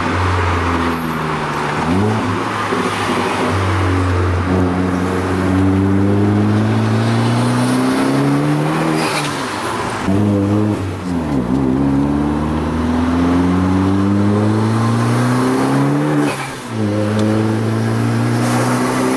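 Turbocharged Volkswagen Jetta engine pulling hard through the gears: its pitch climbs steadily in each gear and drops sharply at an upshift about ten seconds in and again near the end.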